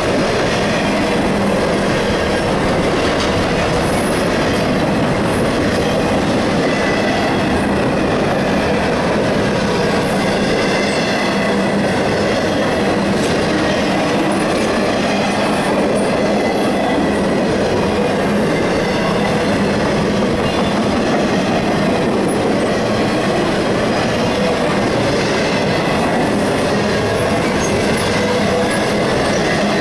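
Freight train of piggyback flatcars loaded with truck trailers rolling past at close range: a steady, loud rumble and rattle of steel wheels on the rails, with a faint high wheel squeal running through it.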